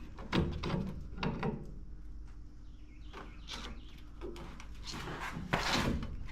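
Metal suspension parts scraping and knocking as a front strut rod is worked loose from a classic car's lower control arm: a few separate scrapes and clunks, the longest and loudest near the end.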